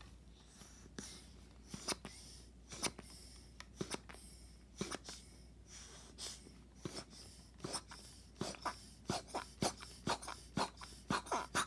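Slime-filled Kenner Real Ghostbusters Sludge Bucket toy being pumped by pressing its tongue, forcing air into the slime to blow an Ecto-Plazm bubble: faint short clicks with each press, about once a second at first and quickening to about two a second near the end.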